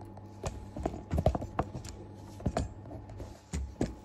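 Handling noise from a hand-held phone being gripped and repositioned: a string of irregular clicks and soft knocks, some with a low thump, loudest a little past a second in.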